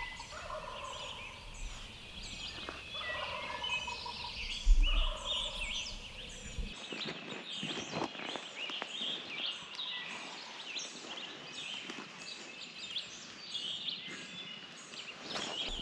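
Wild turkey gobbling repeatedly through the first half, over a dawn chorus of songbirds chirping throughout. A brief low thump comes about five seconds in.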